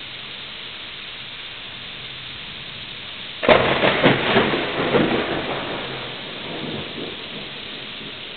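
Steady rain falling, with a sudden close thunderclap about a third of the way in that crackles and rumbles in several surges for a couple of seconds before fading back under the rain.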